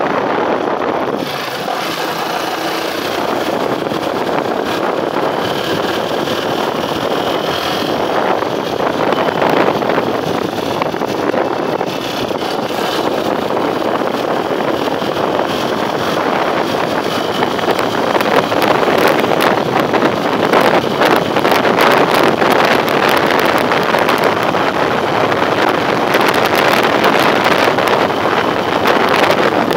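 Wind rushing and buffeting against the microphone of a motorcycle riding at road speed, with the bike's running underneath it. The buffeting grows a little louder and gustier about halfway through.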